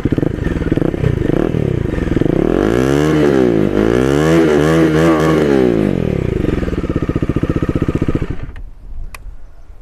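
Bajaj Dominar 400's single-cylinder engine running through an aftermarket Akrapovic-style exhaust. It idles, is revved twice, the pitch rising and falling each time, then settles back to idle and cuts out near the end.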